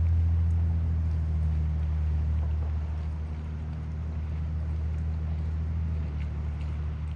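Low, steady engine drone with a deep hum, slowly growing quieter, over a light hiss.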